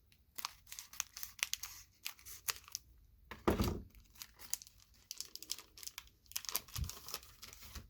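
Plastic wrapper of a trading card pack being torn open and crinkled by hand, in bursts of crackling rustle. There is one louder, deeper rustle about halfway through.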